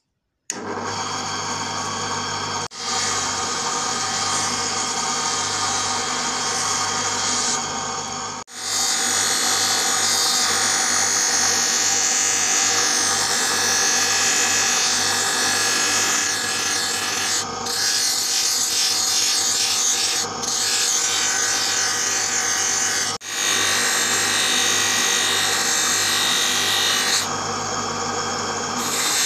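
Electric bench polishing motor running with a spinning buffing wheel, a steel air gun tube pressed against it and being polished, a steady hum under a rushing, scrubbing noise. It breaks off briefly a few times and picks up again.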